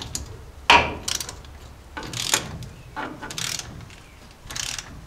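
Socket ratchet clicking in several short bursts as it is swung back and forth to tighten a nut.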